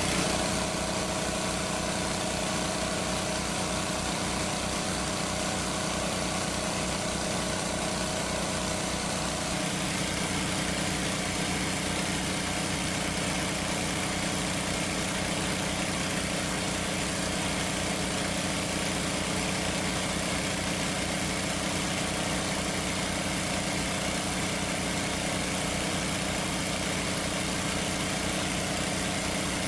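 A small engine running steadily at a constant speed, its tone shifting slightly about nine seconds in.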